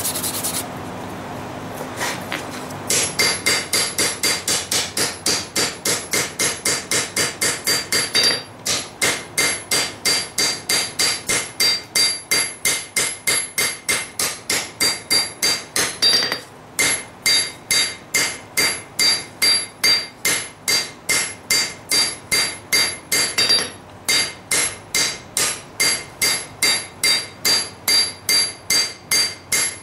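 Hammer blows on hot lawn-mower-blade steel over an anvil, forging the kukri blade into shape. Strikes start about three seconds in, come about three a second in long runs broken by brief pauses, and each leaves a bright metallic ring.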